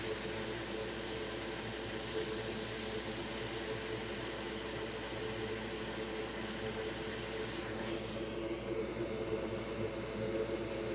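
Steady whir and hiss of a small fan with a low hum; the higher part of the hiss drops away about eight seconds in.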